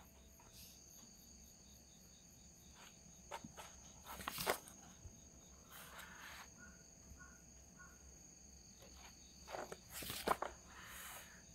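Paper pages of a stapled instruction manual rustling as they are handled and turned, loudest about four seconds in and again about ten seconds in. Behind it, a steady high chirring of insects.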